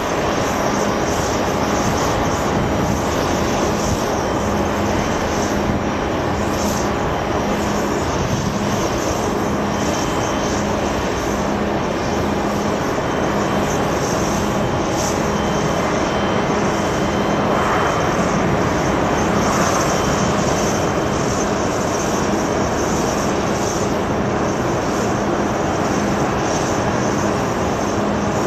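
Jet engines of a Boeing 747-8 freighter running steadily at taxi power, a constant whooshing drone that swells slightly about two-thirds of the way through.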